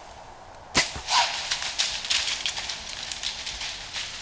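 A sharp crack just under a second in, then a whitetail deer running off through dry fallen leaves: a continuous crackling, rustling patter of hooves in the leaf litter.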